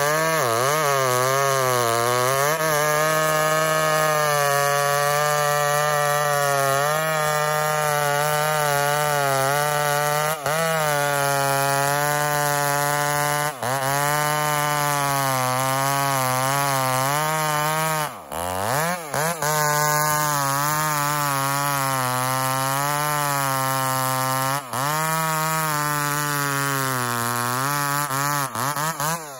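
Ported Homelite two-stroke chainsaw running at full throttle on a stock chain, cutting through a large log. The engine note sags and recovers under load, drops off and revs back up about two-thirds of the way in, and falls away right at the end as the throttle is let off.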